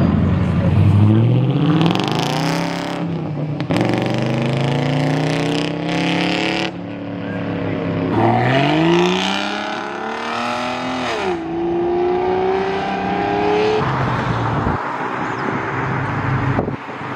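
High-performance car engines accelerating hard in several short clips, the pitch climbing steeply through the revs each time. One climb ends in a sharp drop in pitch, a gear change, before the engine pulls on at a steady note.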